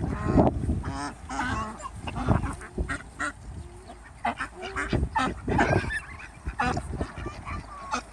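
A flock of white domestic ducks quacking: many short calls, some overlapping, scattered through the whole stretch.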